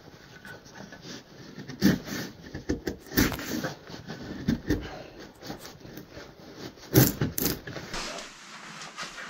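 Irregular knocks, clicks and scrapes, loudest about seven seconds in.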